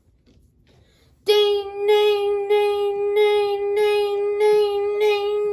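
Toy railroad crossing sounding its electronic bell as its gate arm lowers: a loud, steady high ding re-struck about every 0.6 s, starting about a second in.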